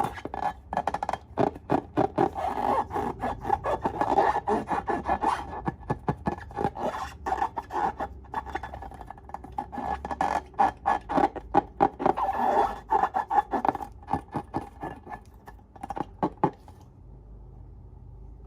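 Slime being squeezed and worked by hand: quick, sticky crackles and squelches in dense runs that stop about a second before the end.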